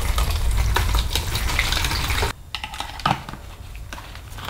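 Liquid hull cleaner poured from its bottle through a funnel into a plastic spray bottle, the pour stopping suddenly about two seconds in. Then a few light plastic clicks and rattles as the trigger sprayer is handled and fitted on the bottle.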